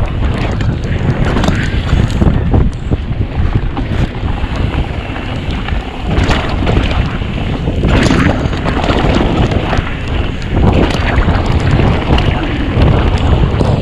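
Wind buffeting the microphone while a downhill mountain bike descends a trail, with its tyres and frame noise broken by several sharp knocks over bumps.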